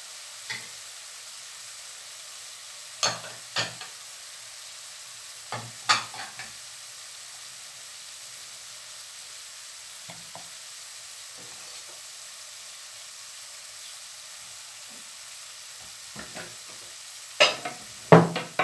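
A slotted metal spatula clinking and scraping against a metal frying pan of stir-fried bean sprouts and tofu, in a few scattered knocks with the loudest ones near the end, over a steady faint sizzling hiss from the hot pan.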